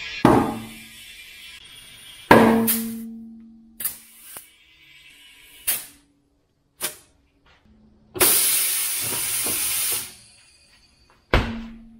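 Compressed air hissing through a dial-gauge tire inflator clipped to a tire's valve stem as the tire is inflated: several short sudden bursts, then a steady hiss of about two seconds that cuts off.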